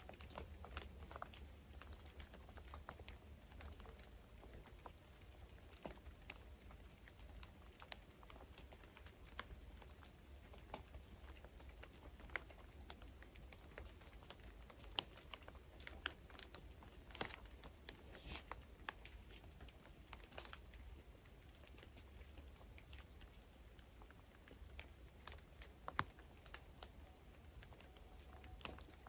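Quiet woodland ambience: faint, irregular clicks and ticks over a low rumble, with a few brief, faint high chirps from distant birds.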